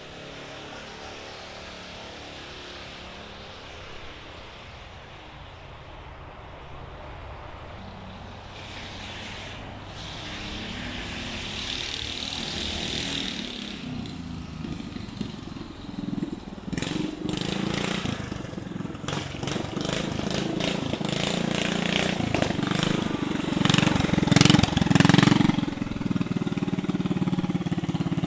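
Straight-piped 340 cc single-cylinder engine of a stretched Motovox MBX10 minibike running under way. It is faint at first and grows steadily louder from about ten seconds in, with choppy, uneven surges over the last dozen seconds.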